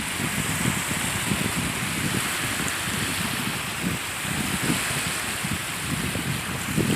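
Wind blowing on the microphone in an uneven low rumble, over a steady wash of sea water lapping at the shore.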